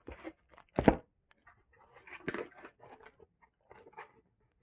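Headset packaging being opened and handled: cardboard and plastic crunching and rustling, with one sharp knock about a second in.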